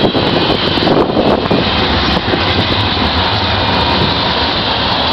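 Steady loud rumble of wind buffeting the microphone and the running noise of a small open vehicle on the move through traffic.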